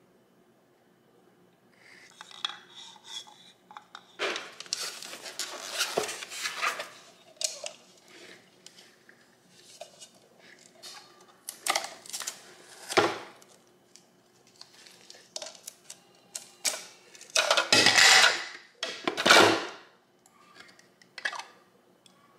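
Handling noise as the parts of a KitchenAid Fresh Prep slicer/shredder attachment are taken out of their box: stainless steel drum blades and clear plastic food pushers clinking and knocking, in irregular bursts, some a second or two long, the loudest near the end.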